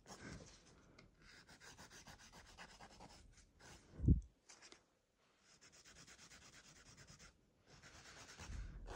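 Hand nail file rasping in quick, soft strokes against a cured gel nail, finishing its almond shape. About four seconds in there is a short dull thump, then a brief pause before the filing resumes.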